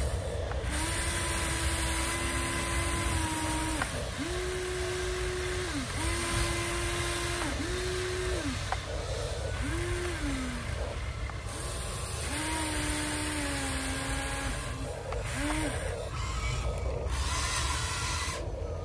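Electric motors of a Huina 1593 RC excavator whining in a series of short runs of one to three seconds as the boom, arm and bucket move, several dipping in pitch as they stop. Underneath is a steady rush of the stream alongside.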